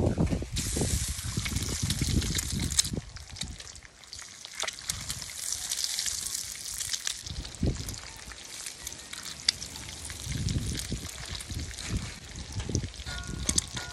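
Eggs frying in hot oil in a wok, sizzling steadily from about half a second in as they are cracked in one after another, with a few low thumps and rumbles.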